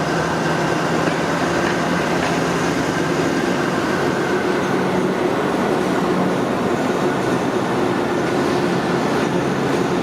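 Train running steadily on the line: a continuous rumble of wheels on track, with a steady engine hum underneath.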